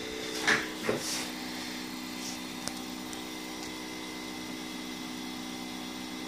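Small motor on a 3D printer's extruder head running with a steady hum while extruding ABS, stopping near the end. A couple of knocks sound about half a second and a second in.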